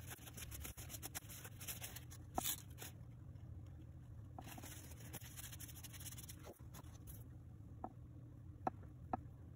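Cloth rubbing over small brass screwdriver shafts in two spells of wiping, with a few light clicks as the little brass parts are handled, most of them near the end.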